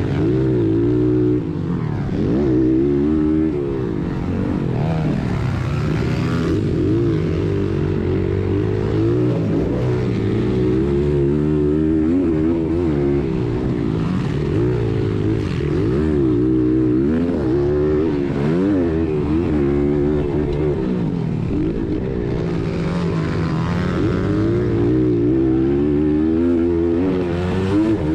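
Honda XR100R's air-cooled four-stroke single-cylinder engine heard up close from the bike, revving up and dropping back over and over as the rider accelerates, shifts and backs off through the corners and straights of a motocross track.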